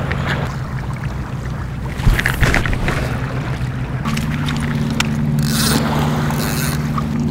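Steady low motor hum that grows stronger about four seconds in, with a few light clicks near the middle and a brief hiss of noise later on.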